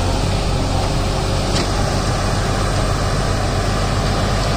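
Diesel engines of a JCB 3DX backhoe loader and an Ashok Leyland borewell lorry running steadily while the backhoe tows the lorry out of deep mud.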